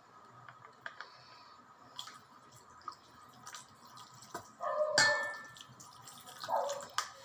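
A dog barking, one sharp bark a little past the middle and a weaker one near the end, over scattered light clicks and drips.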